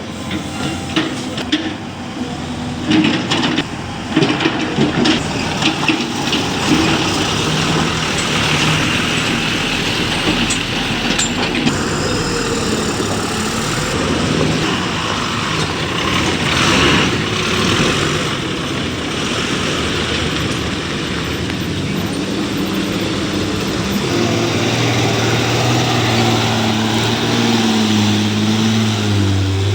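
Heavy vehicle engine running, with scattered knocks and clatter in the first few seconds; about three-quarters of the way through, a nearer engine's steady hum comes in and stays loud.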